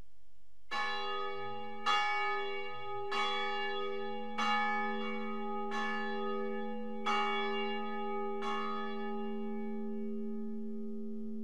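A bell struck seven times at an even pace, about a second and a bit apart, starting just under a second in. Each strike rings on, and the tones overlap into a sustained ring that continues after the last stroke.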